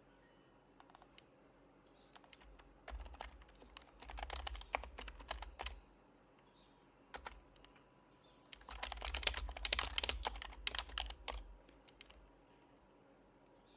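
Typing on an HHKB Professional Hybrid Type-S keyboard with silenced Topre switches, in two quick bursts of keystrokes with a short pause between them.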